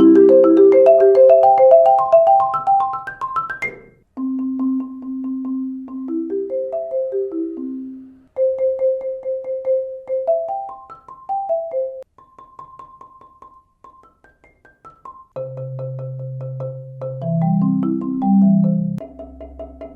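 Marimba played with Marimba One Wave Wrap yarn-wrapped mallets: rolled notes in rising scales and arpeggios. The playing comes in several short passages that break off suddenly, with a softer passage a little past the middle.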